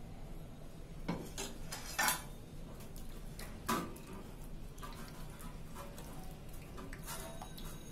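A metal spoon and a glass mixing bowl clinking and knocking against each other and the steel plate under the bowl, a few separate hits with the loudest about two seconds in, while oiled, marinated chicken pieces are mixed.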